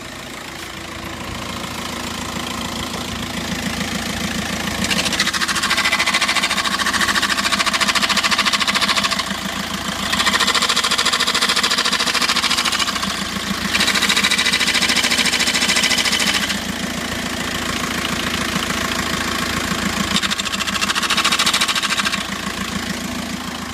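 A 2006 VW Jetta TDI's turbodiesel engine is running with a steady knocking beat. A terrible harsh rattling noise swells in about five seconds in and comes and goes several times, from a clutch that has broken into pieces and grinds when the pedal is pushed in.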